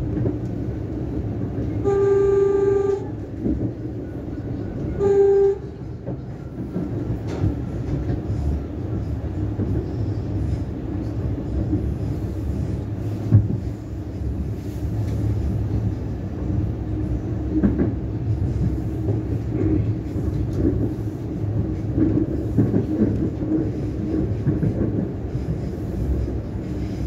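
Siemens Nexas electric suburban train running with a steady low rumble of wheels on track. A train horn sounds twice about two seconds in: a blast of about a second, then a short one.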